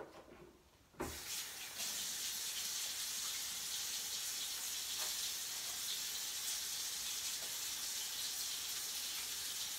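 Kitchen faucet turned on about a second in, then water running steadily into a stainless-steel sink while hands are washed under the stream.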